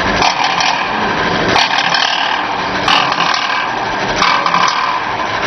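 Teabag packaging machine running, a steady mechanical clatter with a sharp clack about every second and a quarter as it cycles through each bag.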